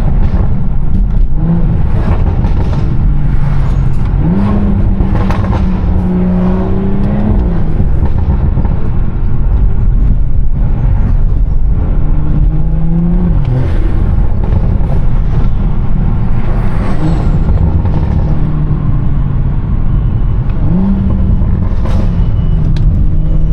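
BMW 340i's turbocharged straight-six running through a loud aftermarket exhaust while driving, its note rising and falling several times with throttle.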